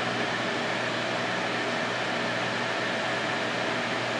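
Steady, even fan noise from the grow tent's ventilation, with a low hum underneath.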